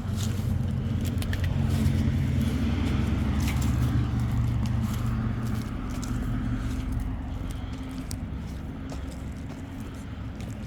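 A steady low machine hum, an engine or motor running, louder in the first half and easing off toward the end, with light clicks and rattles over it.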